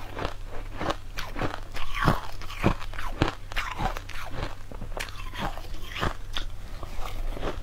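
Close-up crunching as a person bites and chews mouthfuls of green-tinted crushed ice, with many irregular crisp crunches.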